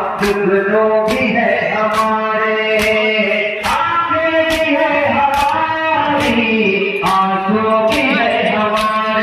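A male reciter singing a nauha, an Urdu mourning lament, into a microphone through a loudspeaker, with long held notes. It is set against the unison chest-beating (matam) of a crowd of men, a sharp slap a little more than once a second that keeps the beat.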